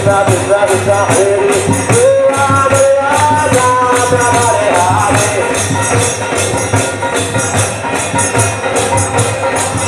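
Street kirtan: a crowd chanting a devotional song together, with jingling hand percussion and clapping keeping a steady beat. The singing is strongest in the first half.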